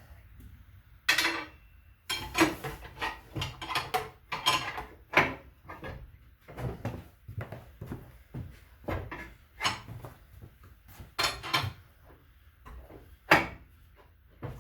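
Tire bead being levered over a motorcycle wheel rim on a manual tire changer: irregular scrapes, clunks and rubbery squeaks as the tool and rubber work against the rim, with sharper knocks about a second in, around two seconds and near the end.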